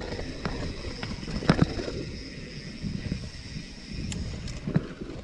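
Niner Jet carbon mountain bike rolling along a dirt singletrack: a steady rumble of tyres on the trail and wind on the microphone, with a few sharp knocks and rattles from the bike over bumps.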